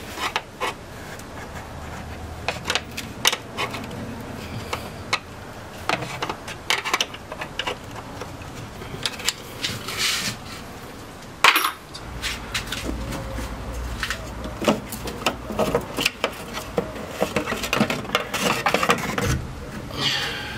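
Irregular metallic clicks and clinks of a ratchet wrench and other hand tools being handled and used in a car's engine bay. A single sharp knock a little past halfway is the loudest sound.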